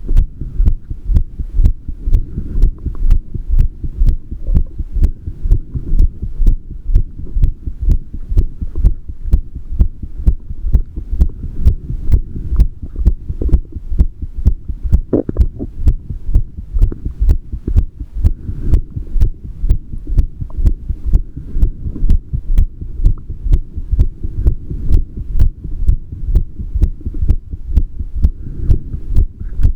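An adult human heart's sounds: a steady, regular heartbeat of low pulses.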